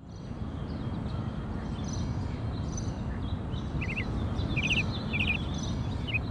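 Small birds chirping in short, quick runs of a few notes, mostly from about four seconds in, with fainter high calls earlier, over a steady low outdoor rumble.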